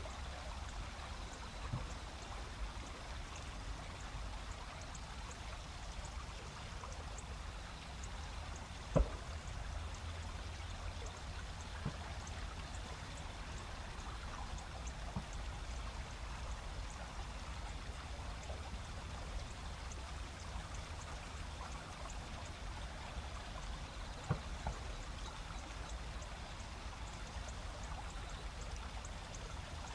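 River rapids flowing steadily, with autumn insects chirping faintly as regular high ticks. A single sharp click stands out about nine seconds in.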